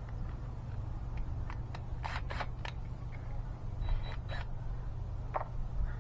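Sharp clicks and snaps of screwdriver bits being handled and fitted: a quick cluster about two seconds in and another about four seconds in, with one more near the end, over a steady low rumble.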